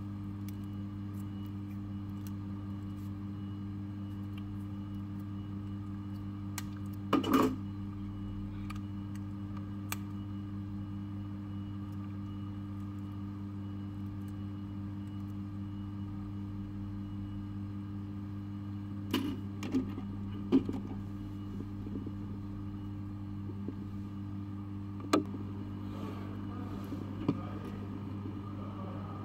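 Steady low electrical hum with a few sharp clicks and taps of tools and small parts on the workbench. The loudest tap comes about seven seconds in, with a cluster near twenty seconds.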